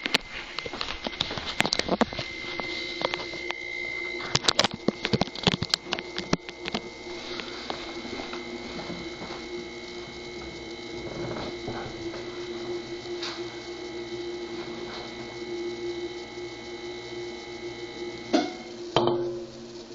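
Haier HNSE032BB compact refrigerator's compressor running with a steady hum and a high whine, with rapid irregular knocking for the first several seconds. Near the end the hum and whine cut off with a couple of loud knocks. The knocking is the sign of a bad compressor.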